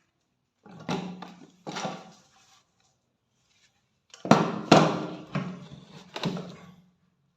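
Hammer striking the metal parts of a rusty rifle: two runs of sharp knocks, each briefly ringing, the second run louder and starting about four seconds in.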